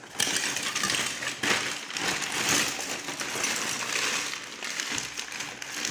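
Hands rummaging through a cardboard box of electrical scrap: plastic bags crinkling while loose wires, cable and metal fittings rustle and clatter with many small clicks.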